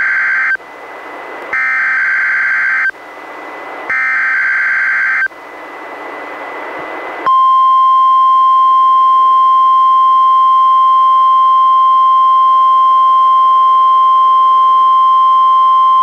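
NOAA Weather Radio emergency alert on a weather radio receiver: the SAME digital header's warbling data bursts, the end of one and then two more of just over a second each, with hiss rising between them. About seven seconds in, the steady single-tone warning alarm starts and holds.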